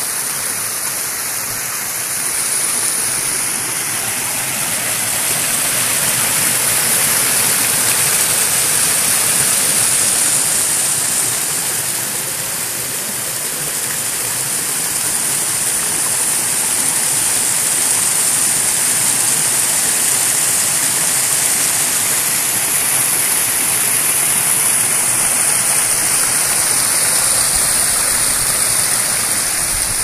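Small forest brook rushing and splashing over stones: a loud, steady rush of flowing water that swells and eases a little.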